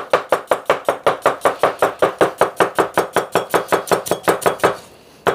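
A broad-bladed kitchen knife slicing an onion thinly on a wooden cutting board: fast, even knocks of the blade on the board, about seven a second, with a short pause near the end.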